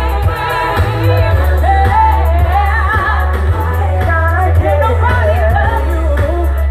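Gospel song: a lead voice sings wavering, ornamented runs over a band with a strong, steady bass line.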